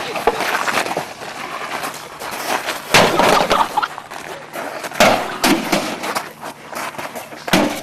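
Loud crashing and banging, with a noisy clatter throughout and several heavy impacts.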